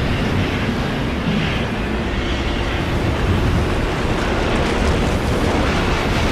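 Tornado sound effect: a steady, loud rumbling roar of wind, heaviest in the low end, with no let-up.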